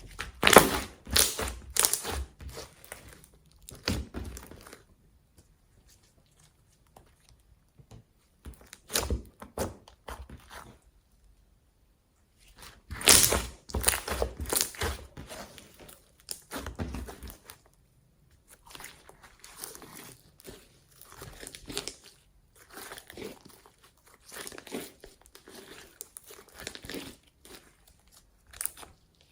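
Slime being squeezed and worked by hand, crackling and crinkling in bursts with short pauses between.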